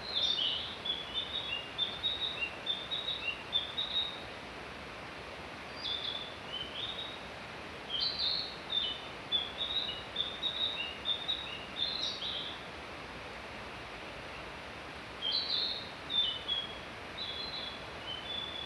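A songbird singing in bursts of quick, high chirping notes, each phrase lasting a few seconds with short pauses between. A steady background hiss runs underneath.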